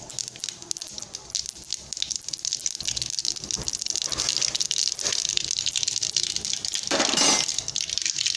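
Mustard seeds popping and crackling in hot oil in a kadai, the pops growing thicker and faster over a rising sizzle, with a louder hissing burst about seven seconds in. The seeds are bursting open because the oil is hot: the tempering stage before the onion goes in.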